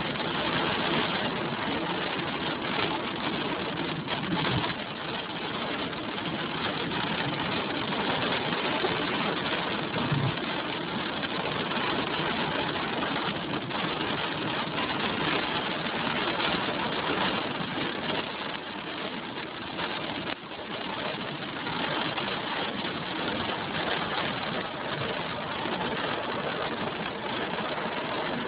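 Steady noise inside a car driving on a wet road: engine and tyre hiss blended into an even rush with no clear engine note.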